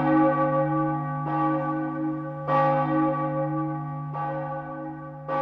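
A church bell tolling, struck about every second and a half, each stroke ringing on with a low hum under the next.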